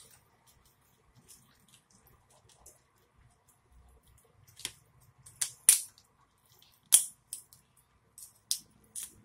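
Boiled lobster tail shell cracking and snapping as it is pried apart by hand: a string of sharp cracks in the second half, the loudest two close together around six and seven seconds in.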